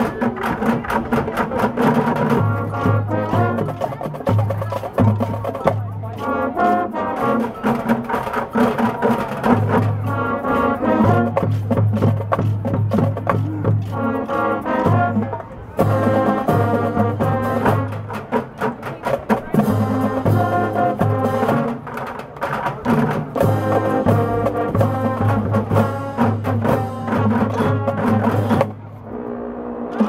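High school marching band playing its field show: brass with marching drums and front-ensemble percussion. The music drops away briefly a little over a second before the end, then comes back in.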